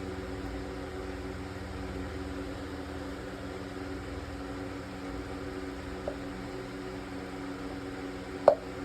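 Steady mechanical hum of a running machine, with a small click about six seconds in and a sharp, louder click near the end.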